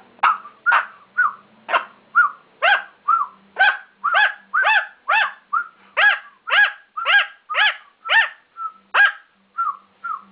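A steady run of short dog-like barks, about two a second, each with a quick rise and fall in pitch. The loudest come in the middle, and the run thins to a few softer calls near the end.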